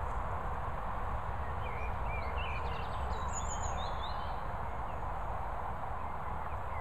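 Steady outdoor background noise with a low rumble, and a few short, faint bird chirps about two to four seconds in and again near the end.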